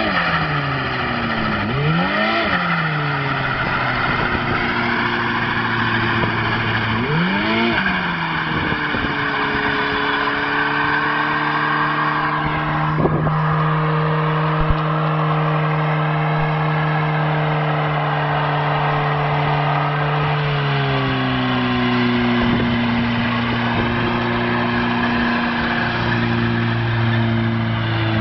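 Renault 5's engine revved in sharp blips, then held at high revs for about twelve seconds while the tyres spin and squeal in a smoky burnout. About twenty seconds in the revs drop to a lower steady pitch as the wheelspin goes on.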